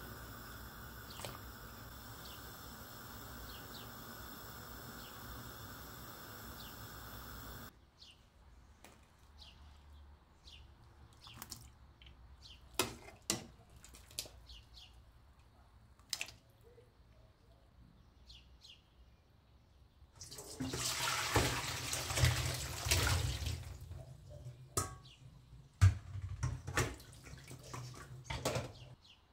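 Water pours into a stainless-steel sink for about three and a half seconds as potatoes in ice water are drained through a metal colander, followed by several sharp clanks of the colander. Before that comes a steady hiss, then scattered light clinks.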